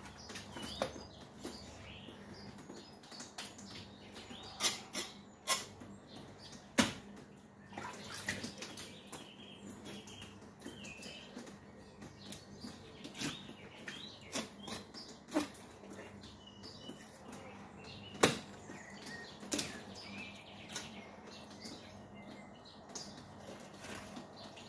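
Irregular knocks and clicks of a curved Victorinox filleting knife and a hake being handled on a plastic cutting board, spread unevenly with quiet stretches between.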